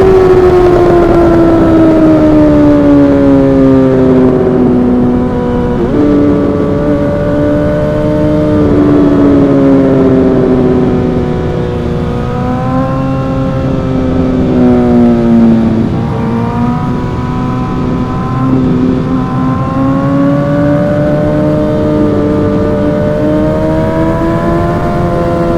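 Suzuki GSX-R1000 inline-four engine under way. The revs fall gradually and jump up sharply twice, about 6 and 16 seconds in, then climb steadily through the last third.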